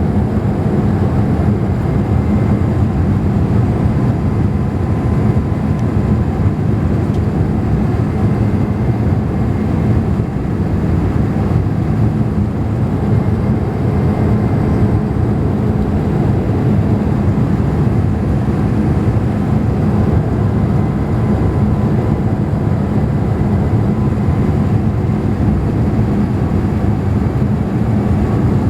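Boeing 787 cabin noise on approach: a steady, even rumble with a low hum and faint steady whining tones running through it. The uploader puts the hum down to the hydraulics, probably set off by the deployed flaps.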